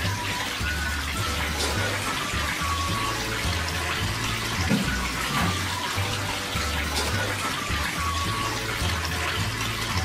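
Thin streams of water from a small terracotta tabletop fountain splashing steadily into a pebble-filled basin, heard as a continuous trickling hiss. Background music with a stepping bass line and short melody notes plays along.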